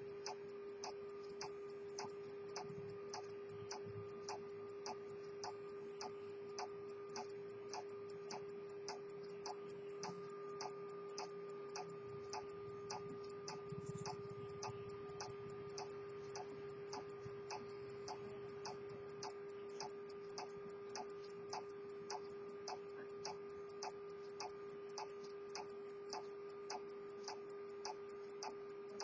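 Edmond Mathey-Tissot minute repeater pocket watch movement ticking steadily as its escapement runs, with a steady low hum underneath.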